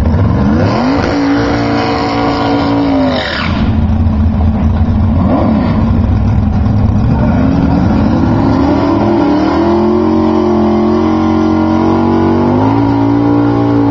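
Drag car engine rumbling under load, revved up and held high for a couple of seconds about a second in, blipped once, then brought up again from about eight seconds in and held for several seconds: a burnout, with the rear tyres spinning in the water box and smoking.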